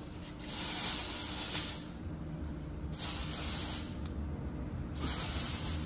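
Three separate bursts of spraying hiss, each about a second long, over a low steady hum.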